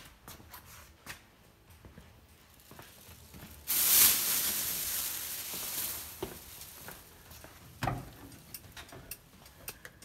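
Light clicking from the newly installed turn-signal flasher, mixed with small taps. Near the middle comes a loud rustling hiss lasting about two and a half seconds.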